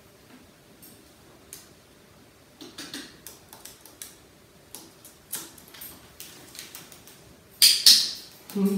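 Light clicks and taps of a small parrot's claws on the plastic of a pet carrier as it steps inside, with a louder clatter near the end.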